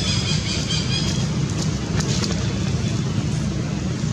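Steady low mechanical rumble, like a running engine or nearby traffic. A brief high chirping call comes in the first second, and a few faint clicks follow.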